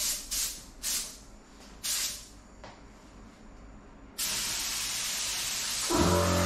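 Air spray gun hissing: several short hisses from quick trigger pulls, then a steady spray from about four seconds in as paint is laid on. Background music comes in near the end.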